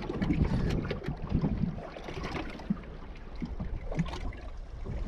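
Sea water lapping and sloshing against the hull of a small drifting boat, with wind noise and a few light knocks.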